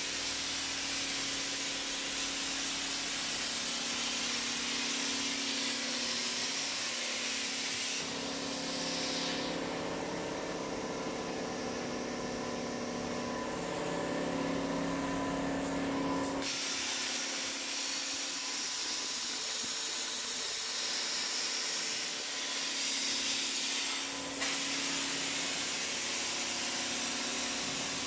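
Portable CNC plasma cutter's arc cutting steel plate, a steady hiss. About eight seconds in the high hiss drops back and a hum with several steady tones comes forward for about eight seconds, then the hiss returns.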